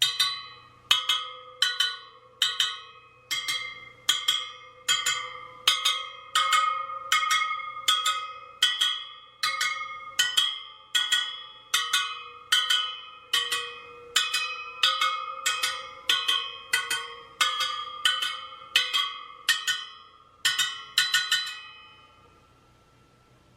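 Motorcycle wheel spokes on a Sur Ron Light Bee front wheel being pinged one after another, about one a second, each giving a short bright metallic ring. This is a spoke-tension check by ear: tight spokes ring high and alike, while a loose one sounds dead. Near the end a few pings come in quick succession, then they stop.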